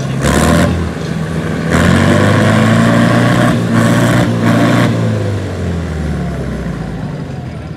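Diesel tractor engines running at full throttle under heavy load as two tractors pull against each other in a tug-of-war. The engine note swells about two seconds in and eases off after about five seconds, with a few short noisy surges over it.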